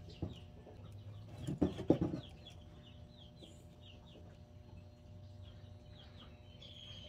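Baby chicks peeping in a box: a run of short, high, falling peeps, about two a second. A couple of sharp knocks come about two seconds in.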